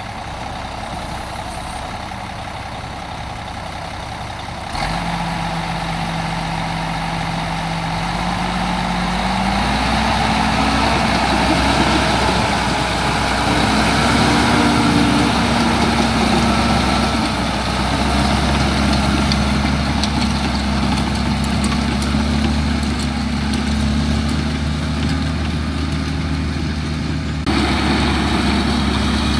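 Heavy engine of a bagasse-pushing tractor running under test; about five seconds in it steps up suddenly, then the revs climb over a couple of seconds and are held high, wavering a little.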